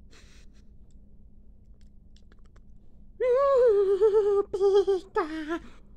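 A soft brief rustle at the start, then about three seconds in a high-pitched wordless voice whines in three wavering stretches, like a put-on character's cry.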